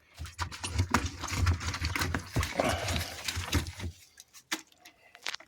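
Nail brush scrubbing the groove of a washing machine's rubber door seal: a run of quick, irregular scrubbing strokes that stops about four seconds in, followed by a few faint clicks.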